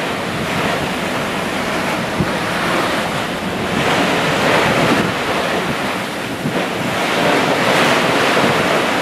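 Open-ocean waves washing with wind buffeting the microphone, a fairly loud rushing that swells and eases.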